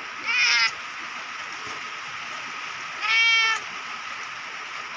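Orange tabby cat meowing twice, about three seconds apart, over a steady hiss of rain.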